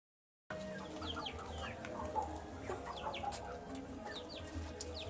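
Baby chicks peeping over and over in short, downward-sliding chirps, with scattered clicks and a low steady hum underneath. The sound starts about half a second in.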